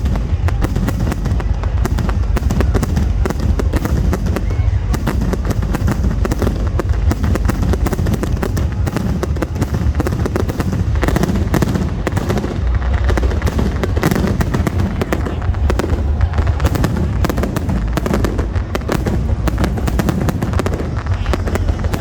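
Fireworks display: a dense, unbroken barrage of rapid sharp bangs and crackles over a heavy low rumble.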